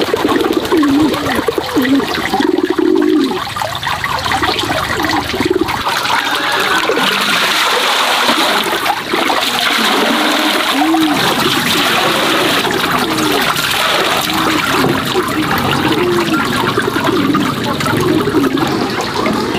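Water running in a steady rush, with gurgling.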